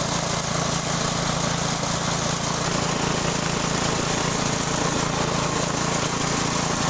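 Multi-function forage chopper machine running steadily at speed, a loud, even machine drone with a constant hum.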